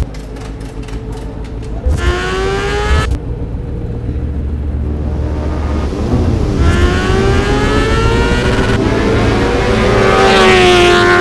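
Honda CBR1000RR superbike's inline-four engine revving: two short rising bursts, then a long steady climb in revs that is loudest near the end.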